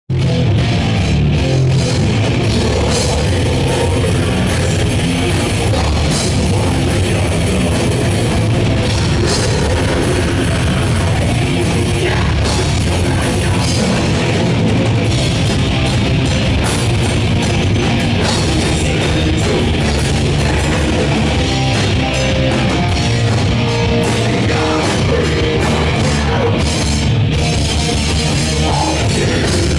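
Loud live heavy rock band playing without a break: drum kit and electric guitars.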